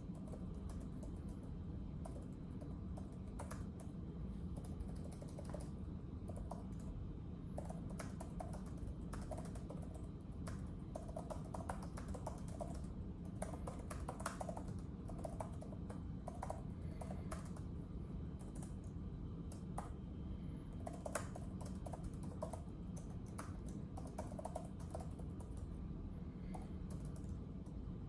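Typing on a keyboard: irregular, soft key clicks in runs with short pauses, over a steady low background rumble.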